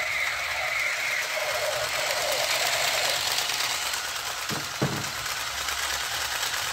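Battery-operated light-up toy machine gun playing its rapid electronic firing sound effect, a steady rattle through its small speaker, with two dull knocks about two-thirds in as it is handled.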